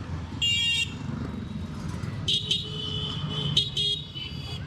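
Steady motorcycle ride rumble in traffic, broken by three short vehicle horn honks: one about half a second in, one a little after two seconds, and a longer one near four seconds.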